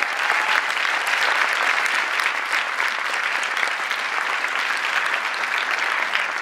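Large conference audience applauding: a dense, steady wash of many hands clapping.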